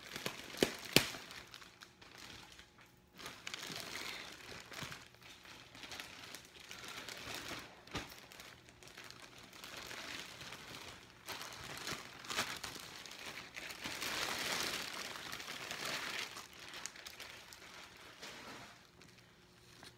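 Clear plastic bag crinkling and rustling in irregular bursts as a leather handbag is worked out of it and the plastic is peeled away, with a sharp click about a second in.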